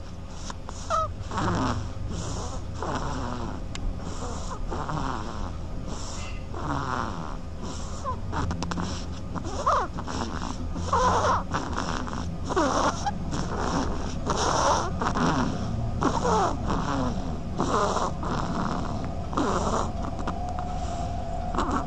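A small duck snoring as it falls asleep: breathy puffs about once a second, many carrying a short falling note.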